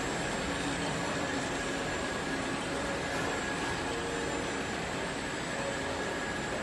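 Automatic top-and-bottom labeling machine for plastic crates running, a steady, even mechanical whir and hiss with a faint high whine over it.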